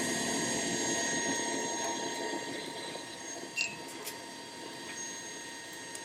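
A steady motor whir with a few fixed tones in it, easing off in level over the second half, with a couple of light clicks about halfway through.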